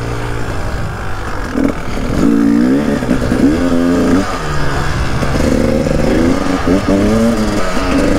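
Two-stroke 300 TPI enduro motorcycle engine being ridden, its revs rising and falling several times as the throttle is opened and closed.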